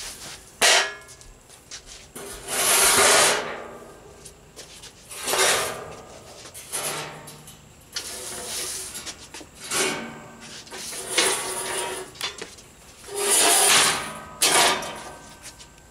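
Bare steel go-kart frame being wrestled onto a hand truck on a concrete floor: a sharp clank, then a series of rough scraping and rubbing sounds about a second long each, with another sharp clank near the end.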